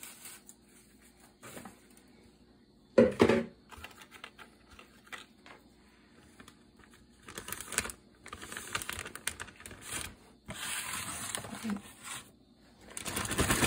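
Plastic Ziploc bag crinkling and rustling as it is handled, in several stretches through the second half. A short, loud knock comes about three seconds in.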